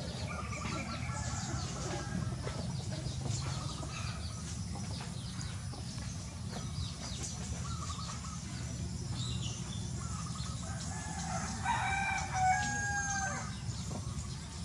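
Birds chirping and calling, with one longer call of several held notes, likely a fowl's, about twelve seconds in, over a steady low rumble.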